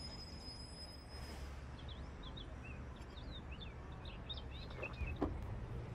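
Small birds chirping intermittently over a steady low ambient hum, with a soft knock or two near the end.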